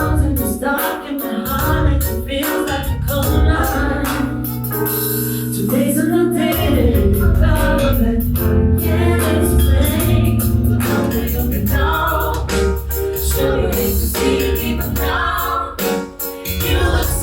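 Music with singing voices over a strong bass line and steady percussion.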